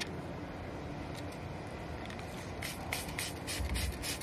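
Spray bottle squirting water onto a film-covered car side mirror: a quick run of short hissing sprays, about four or five a second, starting a little past halfway, over a steady low background noise.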